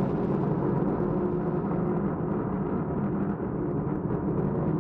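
Steady low rumble of a SpaceX Falcon 9's first-stage engines as the rocket climbs shortly after liftoff.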